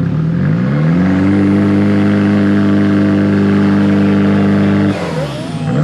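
Turbocharged SR20DET four-cylinder in a Nissan 240SX S14 on a load-holding dyno, rising in revs over about a second and then held at a steady speed under load. It lets off abruptly about five seconds in.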